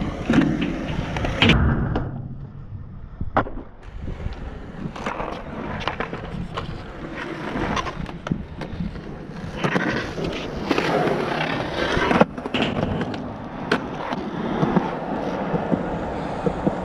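Skateboard rolling across a concrete skatepark: a continuous gritty roll of the wheels, with sharp clacks and knocks from the board scattered throughout, and a quieter stretch about two seconds in.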